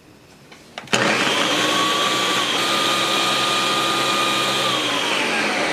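Ninja countertop blender switched on with a click about a second in, then running loud and steady, blending a liquid kulfi milk mixture with bread; its whine sinks in pitch near the end.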